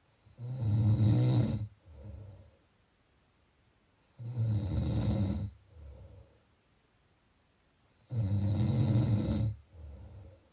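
Snoring: three long snores about four seconds apart, each followed by a shorter, softer sound.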